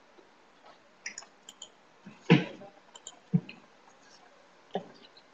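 Scattered faint clicks and a few short soft knocks, the loudest thump about two seconds in, over a quiet room background.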